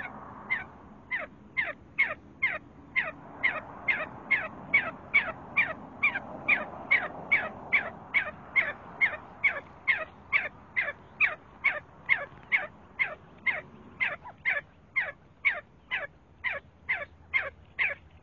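See-see partridge calling: a long, steady series of short, sharp whistled notes, each falling steeply in pitch, about two and a half notes a second.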